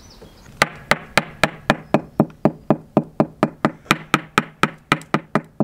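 Rapid, evenly spaced knocking on a fibreglass boat hull, about four sharp raps a second, as the hull is sounded around a suspect filler patch.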